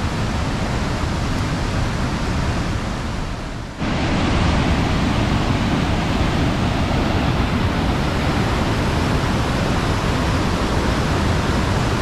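River water rushing over rocky cascades and falls: a loud, steady rush. It dips briefly just before four seconds in, then comes back louder.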